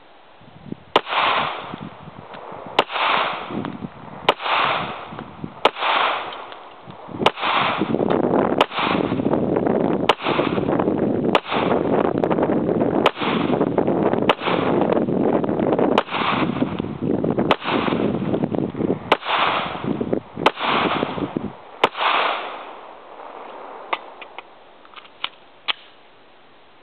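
Glock 17 9mm pistol firing about fifteen single shots at a steady pace, roughly one every second and a half, each followed by an echoing tail. Near the end come a few lighter clicks and knocks of the pistol being reloaded.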